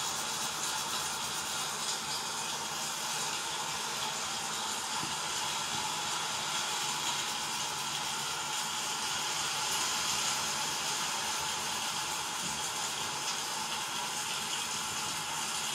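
Steady rushing hiss of heavy rain, even and unbroken.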